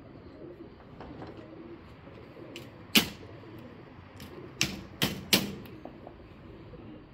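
Pigeons cooing softly, broken by four sharp knocks or taps, the first and loudest about three seconds in and the other three close together a second and a half later.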